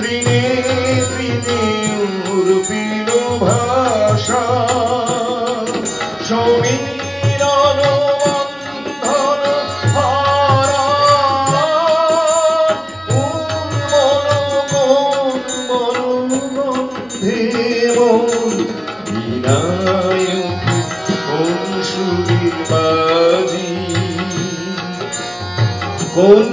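Live Bengali song accompaniment: a male voice singing with wavering held notes over harmonium, with tabla strokes and small hand cymbals keeping a steady beat.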